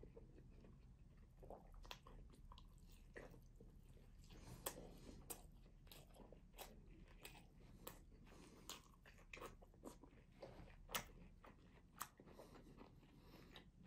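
Faint, close-miked chewing of grilled minced-meat kebab: soft wet mouth clicks and smacks at irregular intervals, a few a little louder than the rest.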